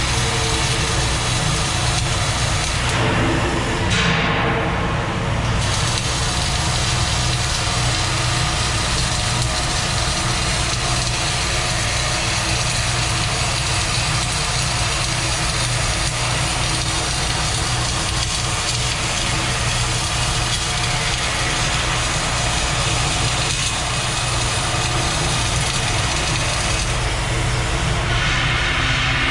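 Arc welding an overhead fillet (4F) joint: a steady hiss from the arc over a constant low hum. The hiss thins briefly a few seconds in.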